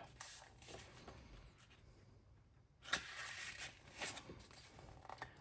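Faint rustling and a sharp click about three seconds in: a page of a picture book being turned.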